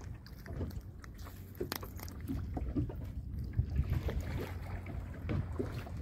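Low steady rumble of wind on the microphone and water around a small open boat, with scattered light clicks and taps as a fishing hook is worked out of a grouper's mouth.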